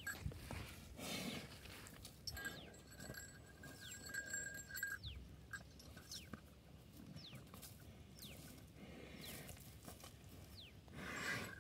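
A humped zebu bull pawing and horning dry field soil, with soft scrapes and thuds of hooves and horns in the dirt. Short, high, falling whistles repeat about once a second over it.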